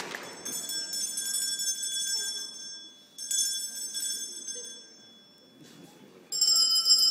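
A bell struck three times, each stroke ringing out for a second or two before fading: once near the start, again about three seconds in, and a third time near the end.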